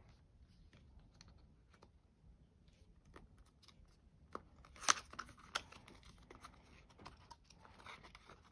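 Faint rustling and small clicks of cardboard and paper packaging being handled as a box is opened and emptied, with a few sharper clicks or taps about five seconds in.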